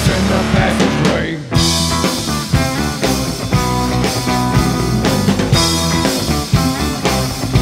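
Live rock band playing electric guitars over a drum kit with a steady beat; the sound thins for a moment about a second and a half in, then the full band comes back in hard.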